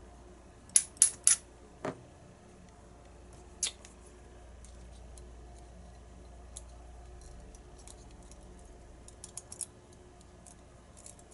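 Small metal clicks of tiny lock pins and springs being handled and set down: three quick clicks about a second in, a couple of single clicks after, and faint light ticks near the end.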